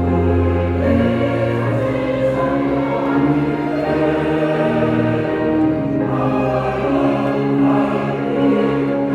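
Church choir singing a lively hymn with organ accompaniment, sustained chords over a low bass line.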